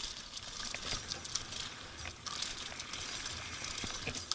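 Mountain bike rolling fast down a rocky dirt trail: tyres crunching over loose stones, with the bike rattling and clicking over the bumps and a steady rush of wind on the microphone.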